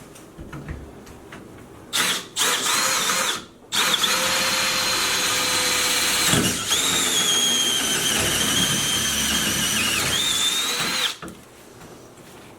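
Power drill running in two bursts, one short and then one long, for about seven seconds in all, with a high whine that sags slightly under load. It stops about 11 seconds in. It is likely drilling out the lock of a metal door.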